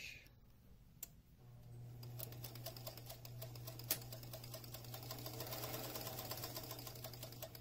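Electric sewing machine sewing a straight stitch: after a click about a second in, the motor starts about a second and a half in and runs steadily, its hum carrying the rapid, even ticking of the needle, until just before the end.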